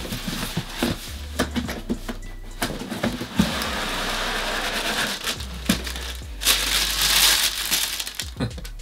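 A cardboard shoebox is handled and its lid opened, with scattered knocks and scrapes. Then tissue paper rustles and crinkles as it is pulled back from the sneakers inside, loudest about seven seconds in.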